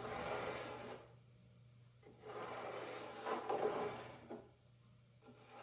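Pencil scratching on cedar strips as a line is drawn along a thin wooden batten, in two strokes: a short one at the start and a longer one about two seconds in.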